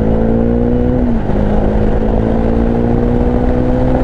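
Bajaj Dominar 400's single-cylinder engine pulling under acceleration: its pitch climbs steadily, drops at an upshift about a second in, then climbs again.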